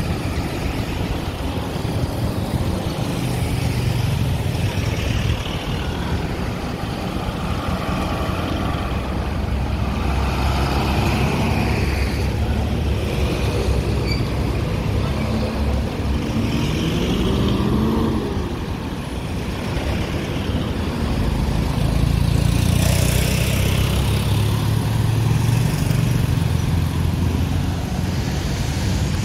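Diesel truck engine running with road traffic passing, a steady low rumble. Around two-thirds of the way through an engine note rises as a vehicle accelerates, followed a few seconds later by a short hiss.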